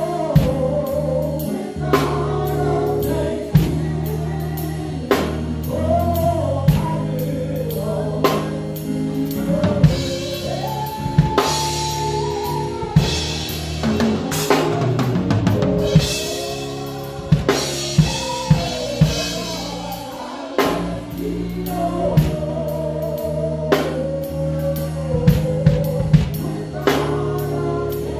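Drum kit played close up in a live gospel worship band, with regular snare, bass drum and cymbal hits over held low notes from the band and singing.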